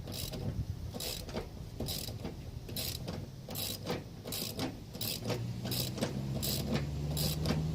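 Ratchet wrench clicking in a string of short strokes, turning a nut on threads that were not cleaned first.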